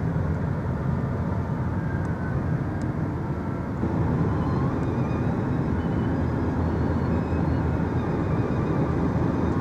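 Steady road noise of a car driving along, tyres and wind rumbling evenly, heard from inside the car.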